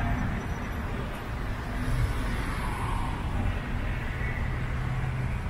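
Car driving slowly along a city street: steady low engine and tyre rumble, with the hum of surrounding traffic.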